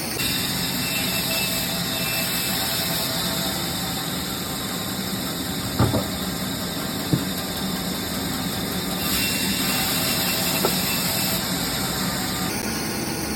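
Wood-cutting machinery running with a steady hum and hiss, with two sharp knocks about six and seven seconds in.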